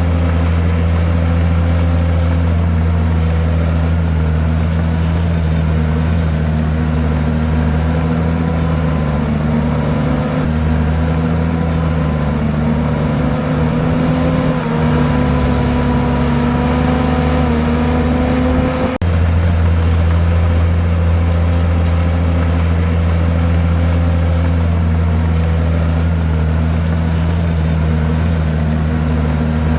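Komatsu bulldozer's diesel engine running steadily, its pitch drifting slightly up and down, with a brief break in the sound about two-thirds of the way through.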